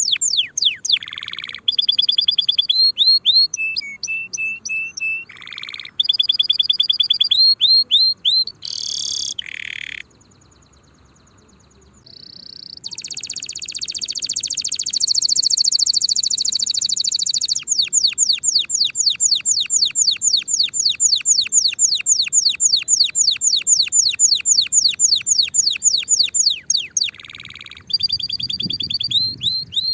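Domestic canary singing: fast trills of repeated high falling notes, with buzzy passages between them. There is a short pause about ten seconds in, and the second half holds one long, even trill of falling notes.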